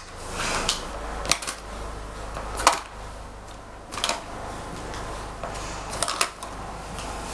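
Small makeup items such as compacts, pencils and brushes clicking and clattering as they are handled and put back into a makeup bag, with a handful of separate sharp clicks.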